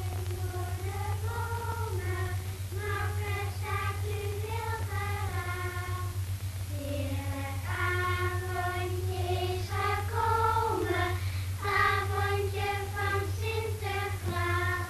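A children's choir singing a slow melody, with a steady low hum underneath.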